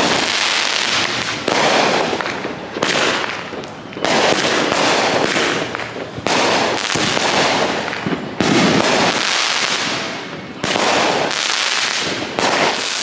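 Consumer fireworks going off: a string of loud bangs every second or two, each followed by dense crackling.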